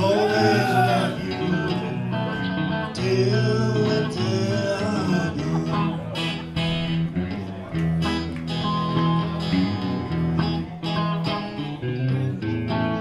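Acoustic and electric guitar playing a country-style instrumental passage after the last sung line. A lead line bends in pitch in the first few seconds.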